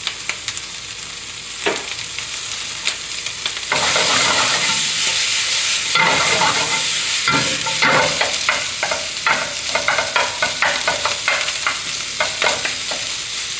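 Pork and vegetables sizzling in a hot frying pan as they are stir-fried. The sizzle grows louder about four seconds in, and quick stirring strokes in the pan follow through the rest.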